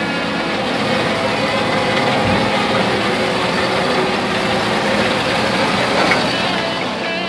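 Large Caterpillar forklift's diesel engine running steadily at close range.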